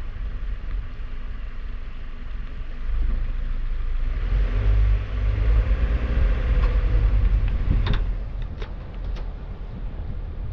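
Car driving on a wet road, heard from a camera mounted on the outside of the car: a steady low wind rumble on the microphone, with the engine and tyre hiss rising for a few seconds about midway as the car speeds up. A few sharp ticks near the end.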